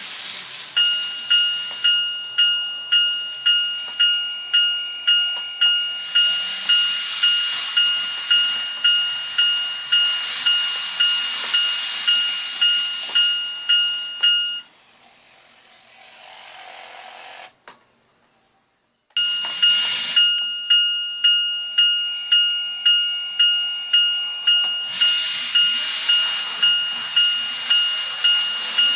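The electronic warning bell of a Tomix N-gauge automatic level crossing, the Japanese two-tone "kan-kan" clang, striking about twice a second. It stops about halfway through, goes briefly quiet, and starts again a few seconds later; a hiss rises under it in the middle and again near the end.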